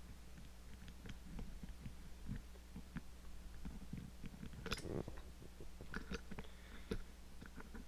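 Small metallic clicks and scrapes of a lock pick and tension tool working the levers of an Ingersoll 10 lever padlock, with one louder scraping click about five seconds in. A steady electrical hum runs underneath.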